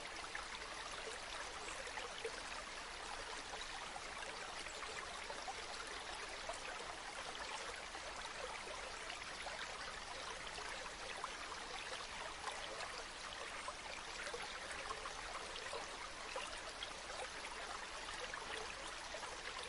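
Mountain stream flowing over rocks: a steady rush of running water with fine splashing and trickling.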